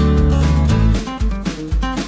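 Background music with a steady beat, deep bass notes and plucked guitar.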